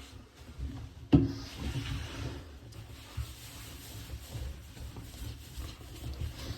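Polishing compound being rubbed by hand over the glossy resin finish of a repaired fibreglass tub, an uneven scrubbing sound, with one sharp knock about a second in.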